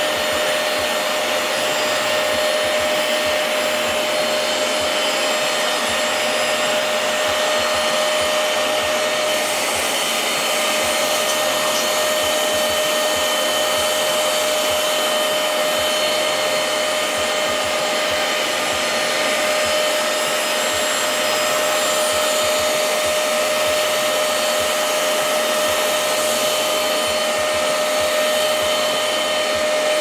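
Hoover CleanSlate carpet and upholstery extractor (wet vacuum) running steadily, a constant motor whine over the rush of its suction as it washes and sucks up water from fabric upholstery.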